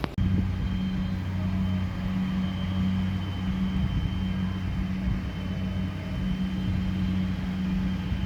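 A steady low engine hum that starts abruptly at a cut and runs evenly, with a faint high whine above it.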